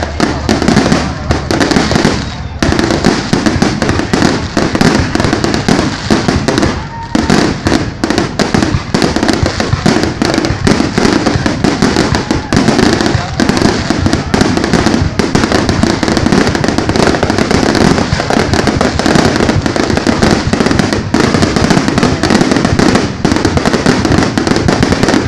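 Fireworks going off in a dense, continuous barrage of rapid, overlapping bangs and crackles.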